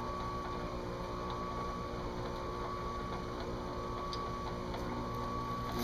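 Drill press running steadily with a constant motor hum, its spinning abrasive pad engine-turning swirls into a metal dashboard insert, with a few faint ticks.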